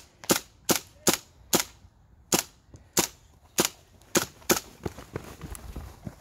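Airsoft guns firing single shots, about a dozen sharp cracks at an uneven rate of around two a second, growing fainter near the end.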